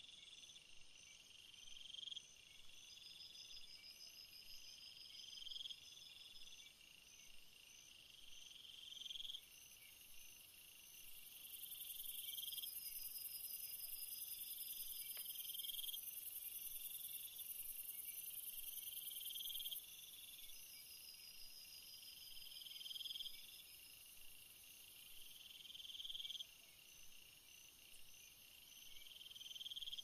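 Night-time chorus of crickets and other insects chirping and trilling. One call swells and cuts off about every two seconds against a fast trill, and a shrill high buzz joins at about ten seconds and stops at about twenty.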